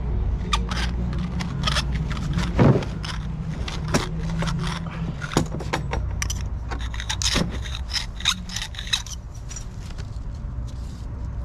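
Copper pipe fittings and hand tools clinking and knocking as they are picked up and handled, with scattered sharp clicks, over a steady low hum.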